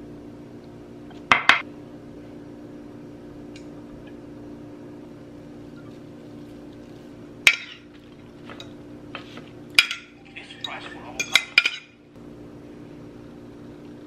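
Metal fork clinking and scraping against a glass food-storage container and a plate as food is scooped out: a few sharp clinks spread apart, then several close together near the end, over a steady low hum.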